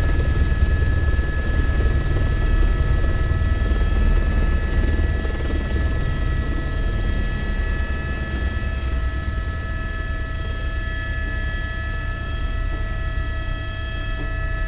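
Helicopter noise heard inside the cabin as it lifts off and climbs away: a heavy, steady rotor rumble with several high steady whining tones over it.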